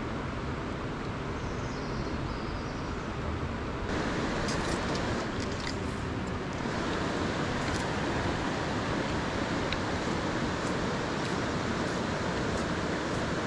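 Steady rushing of a river flowing over rocks, a little louder from about four seconds in, with a few faint ticks over it.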